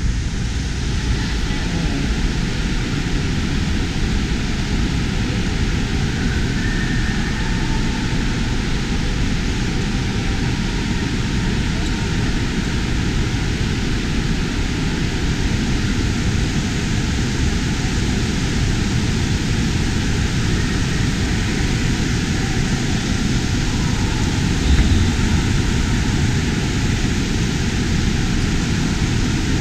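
Steady, even roar of a large indoor waterpark hall, with faint distant voices now and then.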